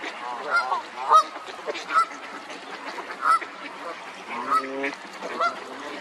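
Ducks calling: a series of short calls, about six, over a steady background hiss.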